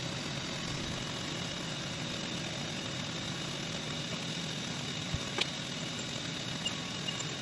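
Steady hum of machine-shop equipment, with a sharp click about five seconds in and a few lighter ticks after it.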